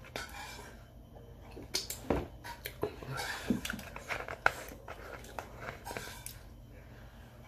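Close eating sounds: chewing and lip smacking, with scattered sharp clicks and crackles as a plastic cola bottle is handled, most of them around the middle.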